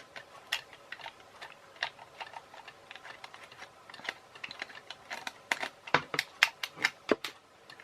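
Irregular small clicks and taps of a toy helicopter's battery compartment being opened and its LR44 button-cell batteries handled, with a busier run of sharper clicks about five seconds in.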